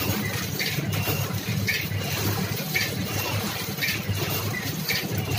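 Rusk cutting machine running: a steady motor hum with a short sharp click about once a second as the feeder and cutter cycle.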